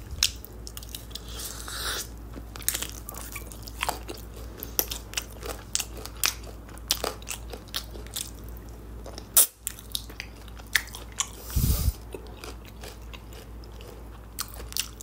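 Close-up eating sounds of a man chewing and biting into a sauce-glazed fried chicken drumstick: many short, irregular mouth clicks and chewing noises, with one sharper click a little past halfway.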